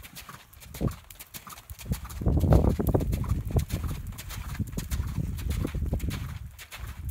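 A horse's hoofbeats on a dirt arena as it is ridden around, a run of short irregular footfalls. A louder low rumble swells in about two seconds in and fades out near the end.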